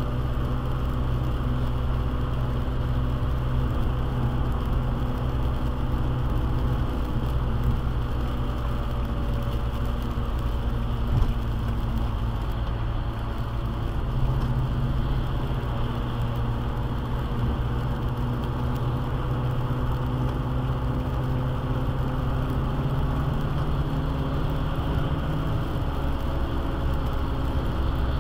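Steady road noise heard from inside a car driving on a wet highway in rain: a low drone with the hiss of tyres on wet pavement and a faint steady tone.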